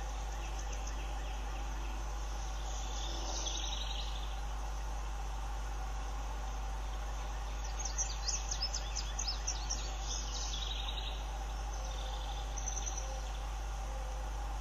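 Small wild birds calling over a steady background hum: a short high call about three seconds in, a rapid run of high chirps lasting a couple of seconds about eight seconds in, and a brief call near the end.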